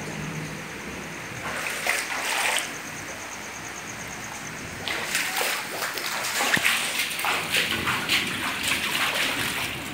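Floodwater splashing and sloshing in irregular bursts over a steady hiss: a short burst about two seconds in, then denser splashing from about five seconds in.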